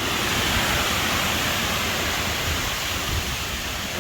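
Heavy rain and strong wind of a thunderstorm, a steady hiss with a low rumble underneath.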